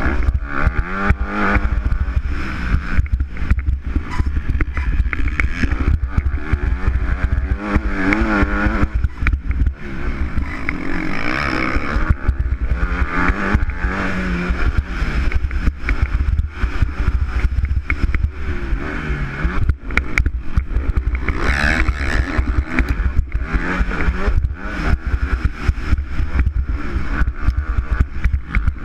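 Motocross bike's engine heard from the onboard camera, revving up and falling back again and again as the rider accelerates and shifts around the track, over a heavy low rumble on the microphone.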